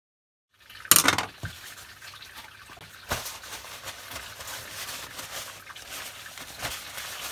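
Paper towel crumpling and rustling as it is rubbed over the metal of a dividing head, with a loud crinkle about a second in and two sharper crinkles later.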